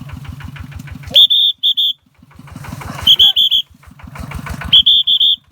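Small farm machine's engine running with a steady, rapid chug of about ten beats a second. Three loud, shrill whistle blasts, each broken into short pips, cut in about a second in, around three seconds in and near the end.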